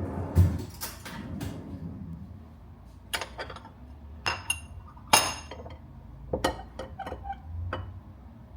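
Dishes being handled: a dull knock, then a series of sharp clinks that ring briefly, the loudest four or so coming in the middle, followed by lighter taps.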